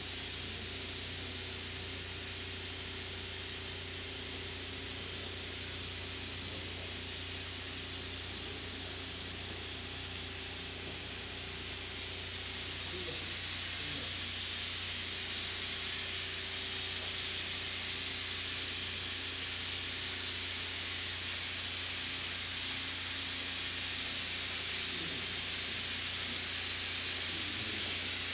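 Steady factory noise from candy-making machinery: an even hiss over a low steady hum with a few faint held tones. It gets slightly louder about twelve seconds in.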